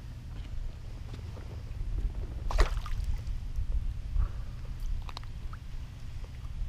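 Handling sounds in a kayak while a redfish is unhooked in a landing net: a few light knocks and clicks over a steady low rumble. The loudest is a sharp knock about two and a half seconds in, with a couple of smaller clicks around five seconds.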